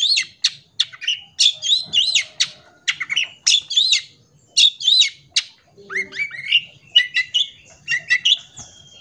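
Long-tailed shrike (cendet) singing a fast, varied song of chattering notes and whistled phrases mixed with mimicked calls of other birds. Short notes rise and fall in quick bursts about twice a second, thinning out near the end.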